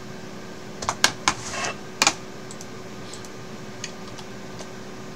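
A short run of keystrokes on a computer keyboard about a second in, followed by a couple of lone clicks, over a steady hum.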